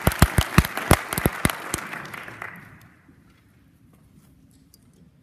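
Audience applauding, with one pair of hands clapping loudly close by; the applause dies away about three seconds in.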